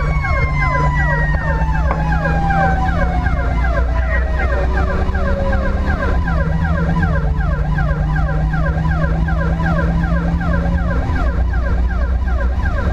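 Emergency vehicle siren in a fast yelp, sweeping up and down several times a second, while a second siren tone that had been held steady slides slowly down in pitch over the first half, like a mechanical siren winding down. A steady engine drone runs underneath.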